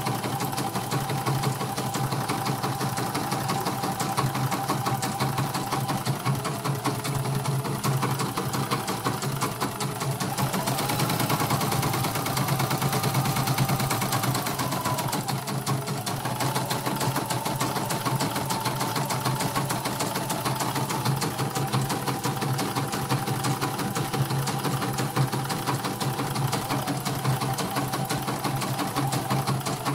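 CNY E900-series computerized embroidery machine stitching at speed: a fast, even needle rhythm under a motor whine that shifts pitch several times as the design runs. The needle is grazing the worn presser foot, which the repairer says makes the machine give off a noise.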